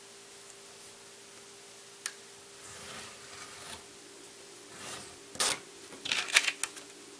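X-Acto craft knife scratching through linen paper along a metal ruler on a cutting mat, after a single click about two seconds in. Near the end come a cluster of sharper scrapes, rustles and taps as the paper and ruler are handled.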